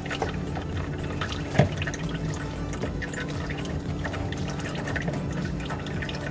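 Engine oil dripping and trickling as it drains from the oil filter housing, with small clicks and one sharper knock about a second and a half in as the housing is worked out by hand. A steady low hum runs underneath.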